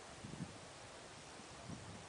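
Faint steady rush of wind through trees during a squall, with a couple of brief low buffets of wind on the microphone.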